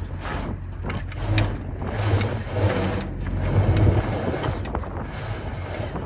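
Roll-tarp crank on a grain truck trailer being turned by hand, its crank and tarp mechanism clicking and rattling irregularly.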